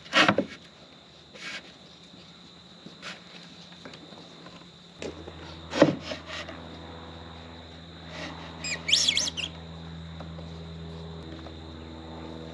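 Scattered knocks and taps of hands working motorhome window glass and its rubber weatherstrip into the frame, the loudest near the start and about six seconds in. A short burst of bird chirps comes about nine seconds in, and a low steady hum sets in about five seconds in.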